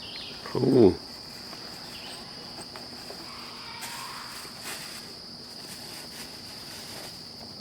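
Steady insect chorus, a continuous high-pitched drone that does not change. A short spoken 'oh' is heard just under a second in.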